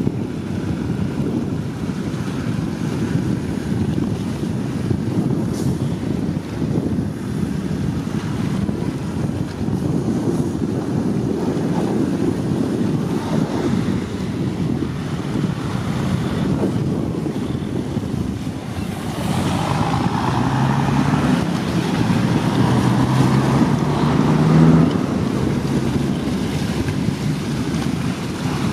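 Wind buffeting the microphone in a steady low rumble, over the wash of choppy water. About twenty seconds in, a faint low hum of a few steady tones, changing pitch in steps, joins for several seconds.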